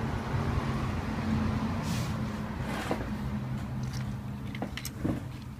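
Steady low hum under a few faint clicks and scrapes of a small part being handled on a phone's circuit board.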